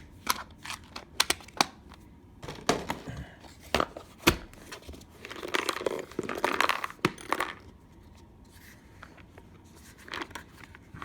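Plastic drill-bit case being handled and closed: a run of sharp clicks and knocks, then a rustling, scraping stretch for a couple of seconds around the middle, and a few more clicks near the end.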